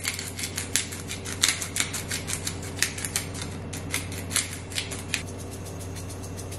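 Hand-twisted pepper grinder grinding peppercorns: a quick run of dry clicks, several a second, that stops about five seconds in.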